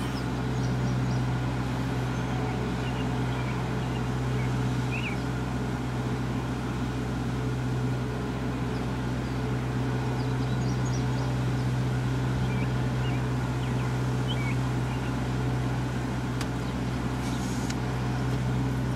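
Steady low hum of an idling vehicle, with faint short bird chirps now and then.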